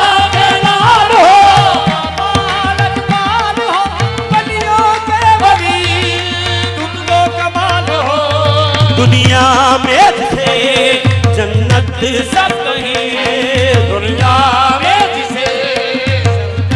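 Qawwali: a voice singing ornamented devotional melody over a steady held drone, with a deep hand-drum beat.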